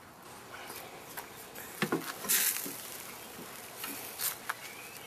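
A few short scuffs and knocks of handling noise, the loudest a little over two seconds in and another near the end, over a faint steady hiss.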